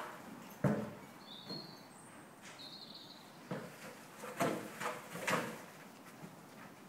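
A few dull knocks and thumps as a stallion noses and strikes a plastic horse ball around a sand round pen: one about half a second in, then four close together in the second half. A small bird chirps faintly a few times between them.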